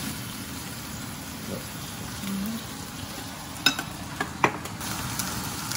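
Two wagyu steaks frying in olive oil in a 12-inch cast iron pan: a steady sizzling hiss, with a few sharp clicks about two-thirds of the way through.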